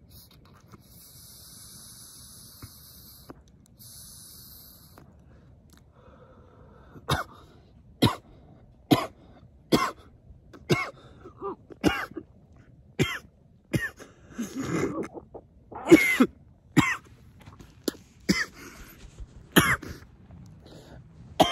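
A man draws on a cannabis vape pen, a soft hiss heard twice in the first few seconds. About seven seconds in he breaks into a coughing fit from the hit: a string of sharp coughs roughly one a second, with a heavier burst of coughing partway through.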